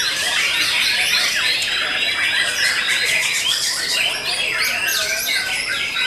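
Several caged white-rumped shamas (murai batu) singing at once: a dense, loud, unbroken tangle of rapid whistles and chattering phrases.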